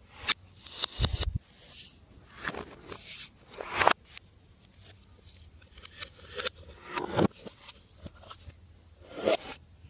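Hands working glossy slime: a string of short, sticky squishing noises every second or so, with a low thud about a second in.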